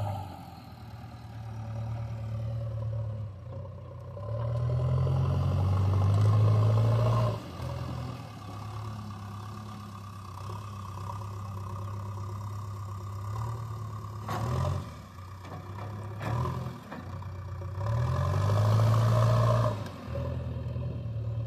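JCB backhoe loader's diesel engine running, revving up under load twice, with a few short knocks and clatter in between.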